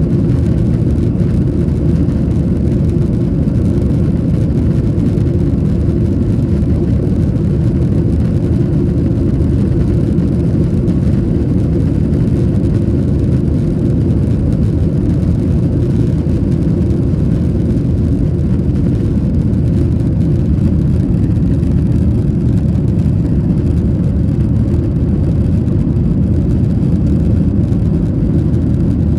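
Boeing 737-800 cabin noise: the CFM56-7B turbofans and airflow make a loud, steady low drone, heard from inside the passenger cabin.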